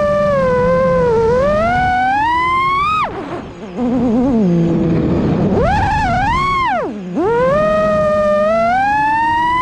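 Brushless motors and propellers of a 6S FPV quadcopter whining. The pitch glides up and down with the throttle, dropping away sharply about three seconds in and again about seven seconds in, then climbing back up.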